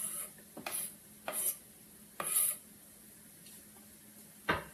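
A utensil stirring and scraping onion into browned ground beef in a frying pan: four short scraping strokes, then two sharp knocks near the end, over a faint sizzle.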